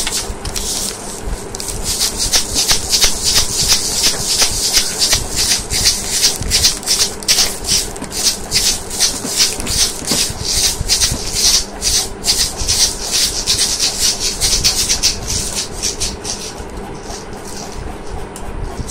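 Crinkly plastic candy wrapper rubbed and crushed between the fingers in quick strokes, about four crinkles a second, easing off near the end.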